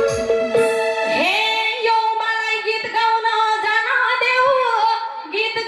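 A woman singing a Nepali dohori folk song into a microphone over a PA. A low drum beat under her voice stops about a second in, leaving her singing mostly alone.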